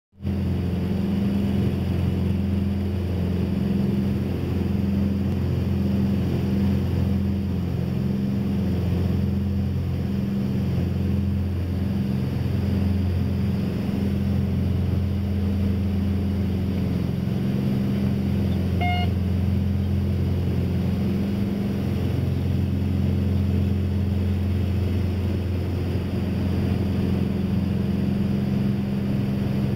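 Cabin drone of a Cessna 421's twin turbocharged piston engines and propellers in cruise: a steady low hum, with a slow pulsing in it during the first third. One short beep sounds about two-thirds of the way through.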